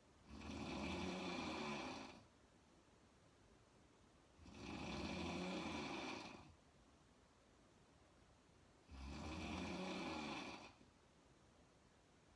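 A woman snoring in slow, regular breaths: three long, rumbling snores about four seconds apart, each lasting nearly two seconds, with quiet breathing gaps between them.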